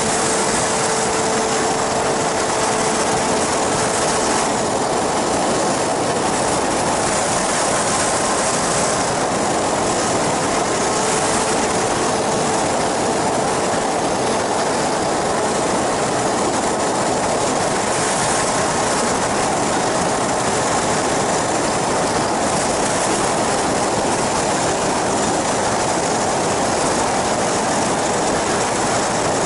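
Steady rush of wind and drone of the engine and propeller of an ultralight flying boat in flight, loud and unchanging, with the wind buffeting the wing-mounted microphone.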